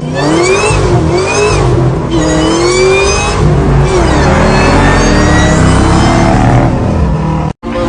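A car engine revving up and down several times, then climbing slowly and steadily in revs for a few seconds.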